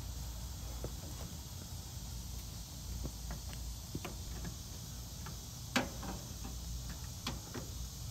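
Scattered small clicks and ticks of a screwdriver and wire lugs on the screw terminals of a mini split outdoor unit's terminal block, the sharpest about two thirds of the way in, over a steady low background rumble.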